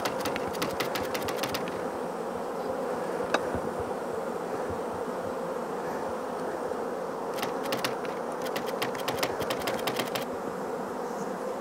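Honeybee colony buzzing in a steady hum from an open hive. Two runs of rapid typewriter key clicks cut in, one right at the start and a longer one from about seven to ten seconds in, with a single click a little past three seconds.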